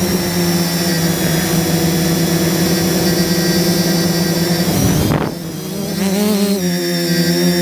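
Turnigy SK450 quadcopter's electric motors and propellers humming steadily, heard from the camera on board. About five seconds in the hum surges briefly, then dips and wavers in pitch as the throttle changes, before settling back to a steady hum.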